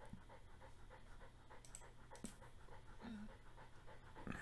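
A dog panting quickly and faintly, about three to four breaths a second.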